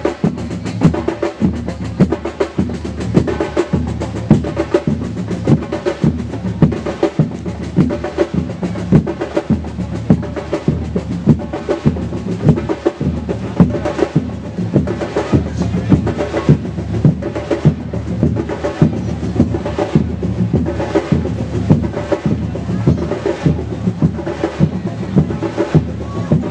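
Percussion-led music with a steady beat: evenly repeating drum strikes over sustained low pitched tones.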